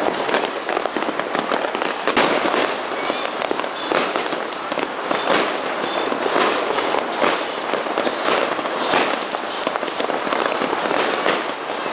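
Many fireworks and firecrackers going off at once: a dense, unbroken barrage of bangs and crackling, with aerial shells bursting overhead.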